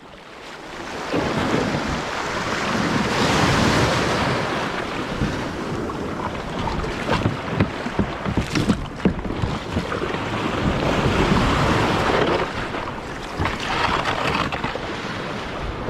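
Ocean waves and wind buffeting the microphone aboard a kayak in big swells, the rush of water swelling and fading, with scattered sharp knocks and slaps.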